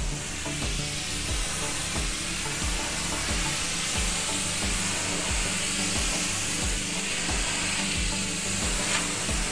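Car-type Kärcher pressure washer's water jet hissing steadily against a yacht's underwater hull, blasting off a year's algae growth and old soft antifouling paint.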